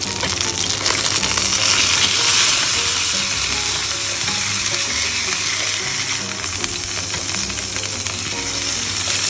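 Sea bream sizzling steadily in a Saladmaster electric skillet, frying in its own juices with no oil added; the sizzle swells a little about two seconds in.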